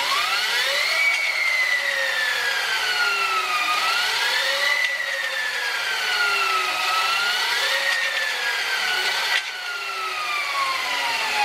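Sur Ron Light Bee electric motor driving the raised rear wheel through a DB Offroad 219 primary chain: a whine with chain whirr that rises under throttle and falls as the throttle eases, three times over. The drive runs a little louder than stock because the chain has not yet been tightened, and the owner expects it to get quieter once it is.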